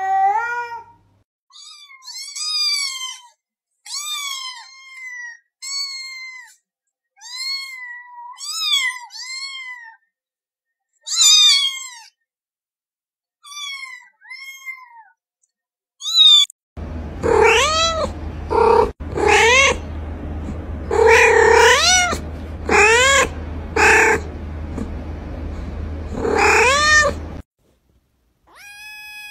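Domestic cats meowing in a string of separate recordings. First comes a run of short, high meows with gaps between them. Then, about two-thirds of the way in, louder, lower meows follow one after another over a steady low hum, and one more meow comes at the very end.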